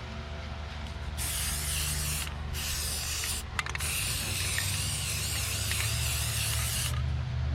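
Paint spraying onto a boat hull in three hissing bursts, the longest about three seconds, with a few short clicks between the second and third, over a steady low hum.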